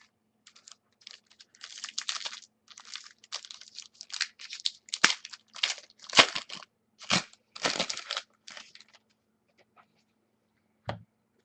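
Rustling, crinkling and tearing of trading-card packaging and cards being handled, in a run of short scrapes, followed by a soft knock near the end.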